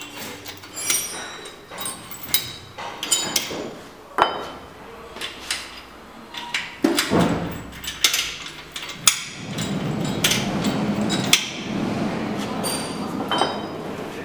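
Metal clinks and knocks of a hand tool and steel fittings being handled on a hydraulic butt fusion welding machine's frame, clamps and hose couplings, irregular single hits with a denser rattling stretch in the second half.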